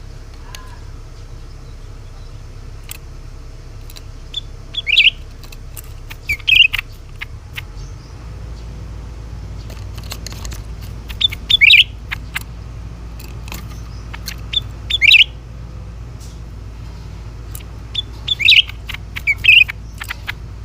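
Cucak ranting bird calling: five short bursts of two or three sharp, falling notes, a few seconds apart, over a steady low hum.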